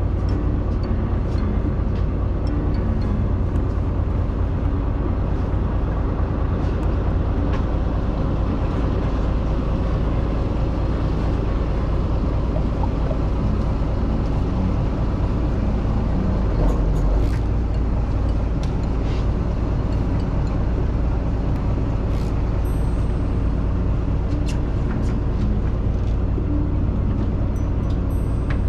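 Fishing boat's engine running steadily, a constant low rumble, with a few faint clicks over it.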